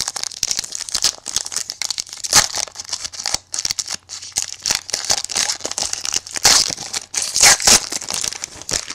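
Foil wrapper of a trading card pack crinkling and tearing as it is opened by hand, with louder rips about two and a half seconds in and again past six seconds.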